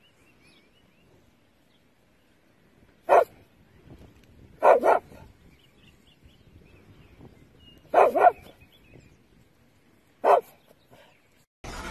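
A dog barking in short spaced groups: a single bark about three seconds in, a quick double bark, another double bark about eight seconds in, and a last single bark near the end.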